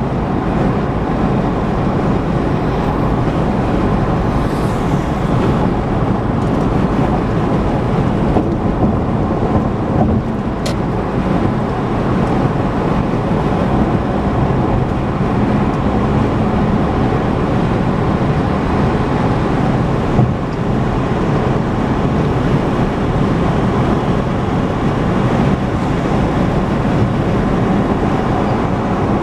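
Steady road and tyre noise of a car driving at highway speed, an even rumble with no change in pace.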